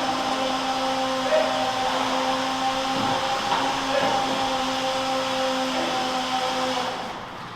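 Milking parlor machinery running: a steady mechanical hum with a few held tones over a noisy hiss, which drops away abruptly near the end.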